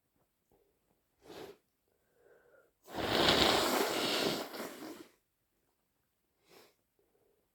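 A person sniffs once, then blows a stuffed, snotty nose hard for about two seconds, the loudest sound here, tailing off at the end. About a second later comes another short sniff.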